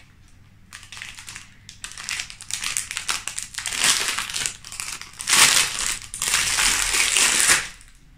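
Clear plastic wrapping crinkling as a small item is unwrapped by hand, in irregular bursts that grow loudest about five seconds in and stop just before the end.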